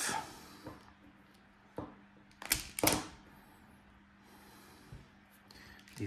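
A few short sharp clicks from a hand-held self-adjusting wire stripper and cable being handled, the loudest pair about three seconds in.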